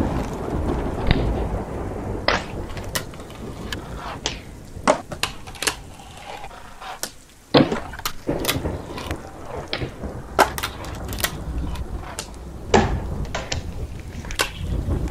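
Fingerboard rolling on a stone countertop and wooden ledge, a steady low rumble from its small wheels broken by many sharp clacks of the deck popping and landing. One of the loudest clacks comes about seven and a half seconds in.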